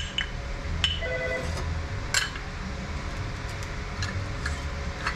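Metal parts of a Mercedes 722.6 automatic transmission clinking as they are handled and set down during teardown, with one part ringing briefly about a second in. A steady low hum runs underneath.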